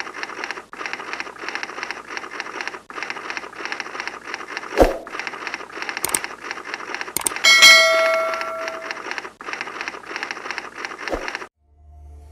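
Subscribe-animation sound effects: a thump, two mouse clicks, then a notification bell chime that rings out for about a second and a half. Under them runs a steady crackly noise that breaks off about once a second, and it all cuts off sharply near the end.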